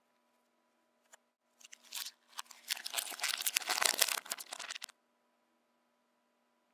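A sheet of paper crinkling and crackling as it is unfolded and smoothed out by hand, from about a second and a half in until it stops about five seconds in.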